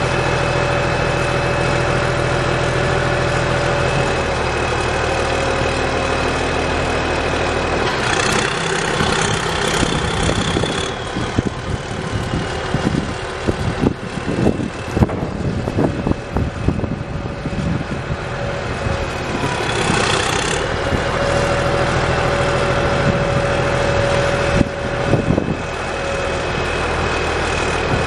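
CASE W20C wheel loader's diesel engine running while the bucket and loader arms are cycled to work the hydraulics, with a whine that rises about eight seconds in and again about twenty seconds in as the controls are worked. Irregular knocks come through the middle of the stretch and again near the end.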